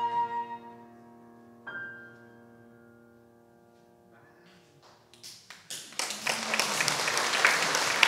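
The last notes of a flute, violin and piano trio fade, then a final piano chord sounds about one and a half seconds in and rings out. About five seconds in an audience starts to applaud, building quickly into steady clapping.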